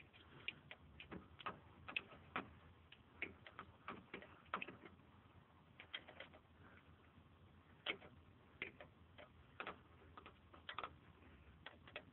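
Scattered light clicks and ticks, irregularly spaced, of metal tools working on a spark plug deep in the engine bay of a 4.7-litre V8, with near silence between them.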